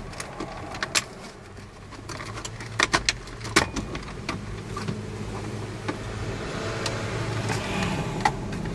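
Plastic trim clips clicking and snapping as the centre-stack trim cover is pulled off the dashboard of a 2008 Mini Cooper: a handful of sharp clicks, bunched about three seconds in, over a low steady hum.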